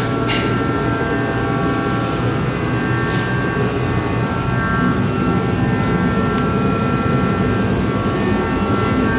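A machine running steadily: a dense, even rumble with several steady whining tones over it and a couple of faint clicks right at the start.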